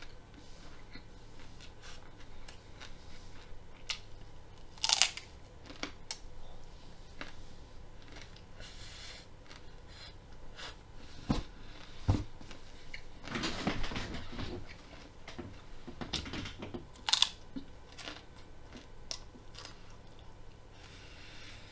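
Raw broccoli being bitten and chewed: crisp crunching of the dense stalk and florets, with a few louder snapping bites. The hardness of the raw stalk makes for long, effortful chewing.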